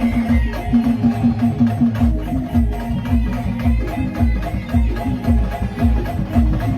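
Music with a steady, fast drum beat and a repeating pitched instrumental line; no singing.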